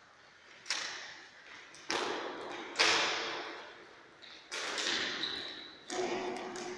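Floorball play: plastic sticks striking the hollow plastic ball and the ball hitting the boards or goal frame, five sharp clacks echoing in a sports hall, the loudest about three seconds in.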